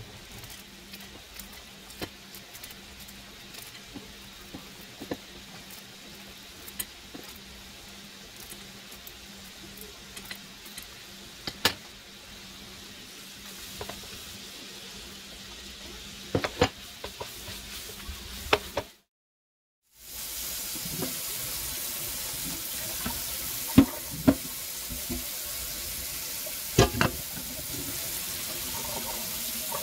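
Ground beef and onion sizzling quietly in a frying pan, with occasional sharp clicks of a wooden spoon and handling. After a short break, a louder steady rush of water pours into a stainless steel sink as a pot of macaroni is drained through its strainer lid, with a few knocks of the pot.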